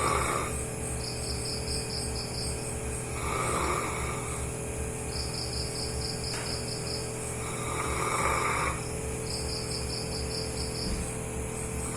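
A sleeping dog snoring loudly, a rasping snore roughly every four seconds. Between the snores, insects chirp in fast trills.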